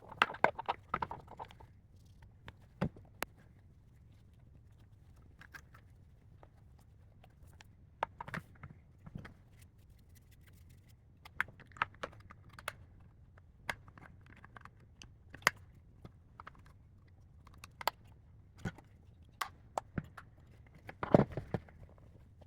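Irregular clicks and knocks of plastic parts being handled and fitted together during hand assembly of a car dashboard screen unit, with a quick cluster of louder clatter near the end.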